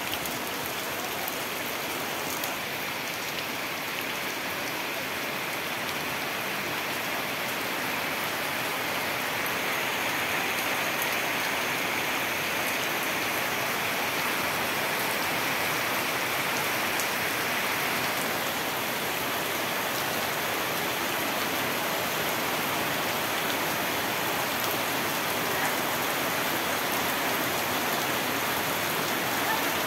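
Heavy rain falling steadily on tree leaves, a dense even downpour that grows slightly louder about ten seconds in.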